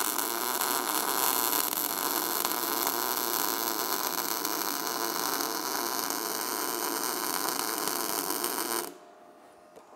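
MIG welding arc from an Everlast MIG140 running a fillet-weld bead with the torch at the corrected angle: a steady, even hiss that cuts off about nine seconds in, when the trigger is released.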